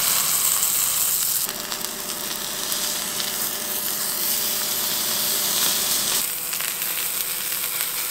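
Kobe beef sirloin tips searing in a hot cast iron skillet, a steady sizzle. Its tone shifts abruptly twice, about a second and a half and about six seconds in.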